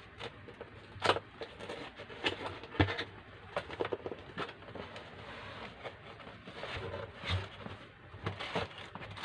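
A parcel being opened by hand: irregular rustling and scraping of packaging with sharp clicks and knocks, the loudest about a second in and just before three seconds.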